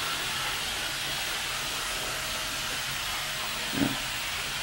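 A steady hiss, with one short low sound near the end.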